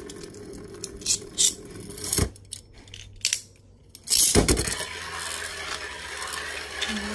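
Beyblade spinning top whirring and rattling on a plastic stadium, with a few clicks and a sharp knock about two seconds in. After a short quieter spell, a loud clatter about four seconds in, then steady spinning again.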